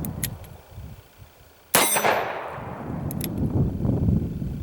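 A single revolver shot from a Ruger GP100 firing a .327 Federal Magnum round, about two seconds in: a sharp crack with a long ringing, fading tail. Two faint clicks come before it, one near the start and one near the end.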